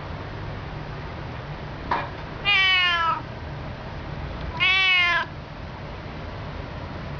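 Domestic cat meowing twice, each call lasting under a second: the first falls in pitch, the second rises then falls. A brief sharp sound comes just before the first meow, and a steady low hum runs underneath.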